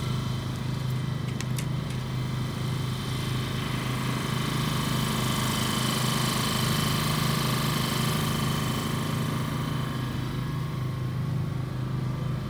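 A small engine running steadily at constant speed, a low hum with a thin steady whine above it.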